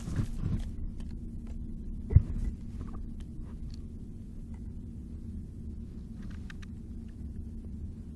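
A calico cat digging with its paws in soil and wood debris inside a hollow log, making faint scattered scratching and rustling over a steady low rumble. A single dull thump comes about two seconds in.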